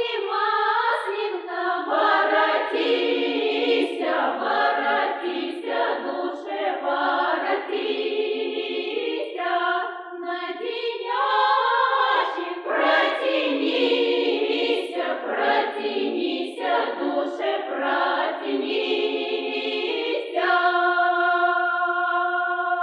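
Unaccompanied group of women's voices singing a Russian Maslenitsa (Shrovetide) folk song in a field recording, closing on a long held chord near the end.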